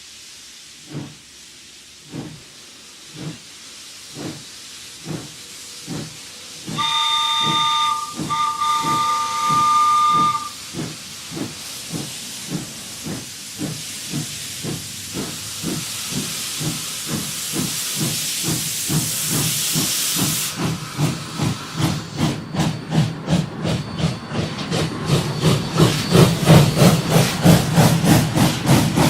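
Steam locomotive chuffing, slow at first and speeding up steadily to about three beats a second as it gets under way. About seven seconds in, a four-tone walnut train whistle sounds a chord in two blasts, the second longer. A steady hiss builds under the chuffs and cuts off about twenty seconds in.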